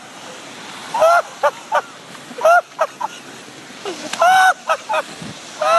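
A dog's repeated high yelping barks, in clusters of a longer call followed by two or three short ones.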